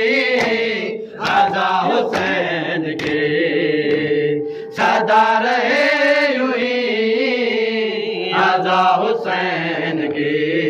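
Men's voices chanting a noha, a Shia lament for Imam Husain, in a slow repeated melody without instruments. A lead voice is on a microphone, with other men joining in.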